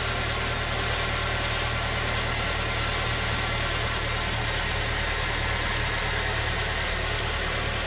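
2009 Toyota Tacoma engine idling steadily while still cold, with compression leaking into the cooling system, which the mechanic takes as the cause of its misfire.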